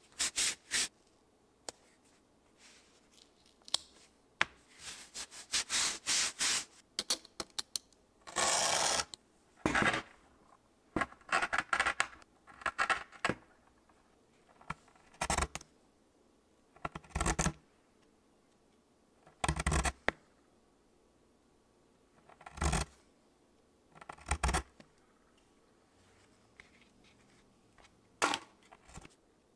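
A blade cutting leather along a steel straightedge: a string of short scraping strokes, each under a second, with pauses between them.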